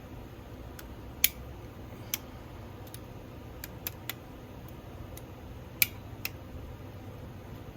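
Scattered sharp clicks and taps of hand tools working at the anti-vibration spring mount of a Stihl MS 261 chainsaw, about ten in all with two louder snaps, over a steady low hum.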